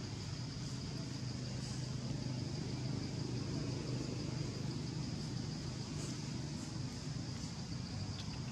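Steady outdoor background noise: a continuous low rumble with a steady high-pitched hiss above it, and no distinct event standing out.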